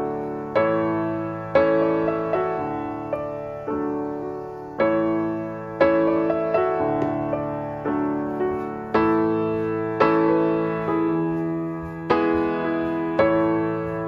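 Background music on piano: gentle notes and chords struck about once a second, each ringing and fading before the next.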